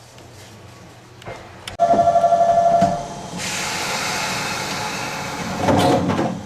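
A train's warning buzzer pulses rapidly for about a second, then compressed air hisses loudly for a couple of seconds from the electric train's air system, with a shorter rush of noise near the end.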